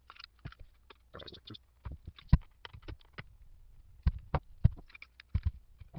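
Handling noise from a screwdriver and the metal housing of a Spencer's logger tape: irregular sharp clicks and knocks, loudest about two seconds in, with a quick run of knocks about four to five and a half seconds in.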